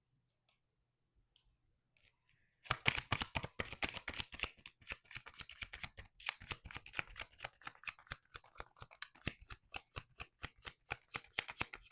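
A tarot deck being shuffled by hand: a quiet start, then about two and a half seconds in, a fast, even run of card snaps and flicks, roughly six a second, that keeps going to the end.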